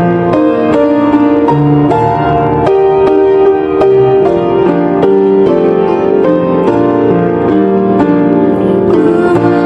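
Instrumental introduction to a hymn on a keyboard, with chords and a melody line struck in an even rhythm and no voices yet.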